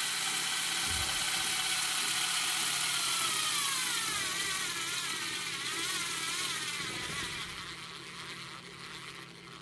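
Black & Decker AS600 AA-powered electric screwdriver whining as it drives a wood screw into a wooden block. From about three seconds in its pitch sinks and wavers as the motor bogs down under the load, then it fades and stops near the end: the motor is straining hard enough to risk burning it out.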